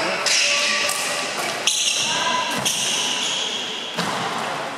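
Badminton play in a sports hall: a few sharp racket strikes on the shuttlecock, with shoes squeaking on the hall floor around the middle, all echoing in the large hall.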